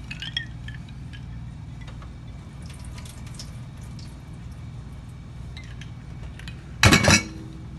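Water being drained from a glass jar of freshly churned butter into a stainless-steel kitchen sink, with dripping and small splashes. There is one loud, brief splash-and-knock near the end.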